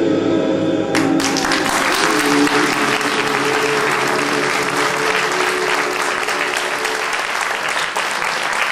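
Audience applauding, starting about a second in over the final held notes of the dance music, which stop near the end.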